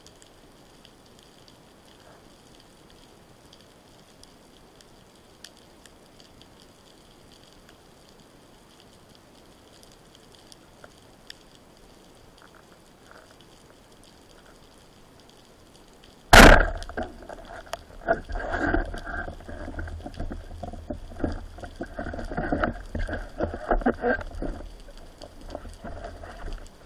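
Underwater speargun shot: a single sharp, loud crack about 16 seconds in, after a stretch of faint steady underwater hiss. It is followed by several seconds of irregular knocking and rattling from the gun, shaft and line as they are handled, which fades out near the end.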